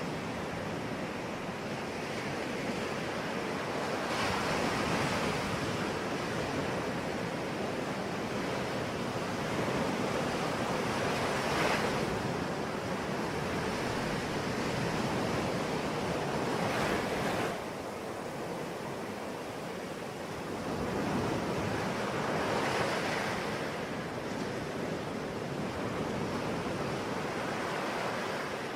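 Sea waves washing on a shore: a continuous rush of surf that swells as a wave breaks about every five or six seconds.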